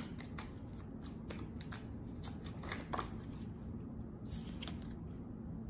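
Tarot cards being shuffled by hand: a quick, irregular run of light card clicks and riffles. About four seconds in, a card slides out onto the table.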